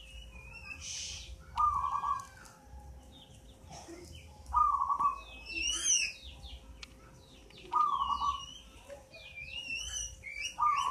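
Eight-month-old zebra dove cooing its staccato song four times, one short pulsed phrase about every three seconds. Other small birds chirp and whistle higher in between.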